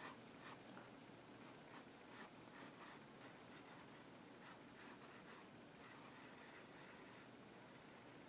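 Woodless graphite pencil scratching faintly on sketchbook paper in a run of short strokes, then one longer unbroken stroke about six seconds in.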